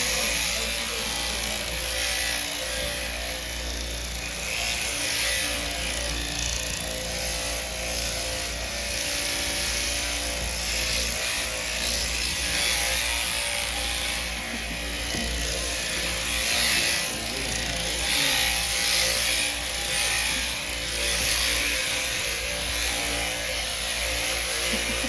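Sheep-shearing handpiece running steadily while its comb cuts through a lamb's fleece, a machine hum under a continuous rasping hiss.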